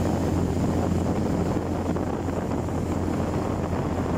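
Vehicle engine running steadily while driving along a road, a constant low hum with wind buffeting the microphone.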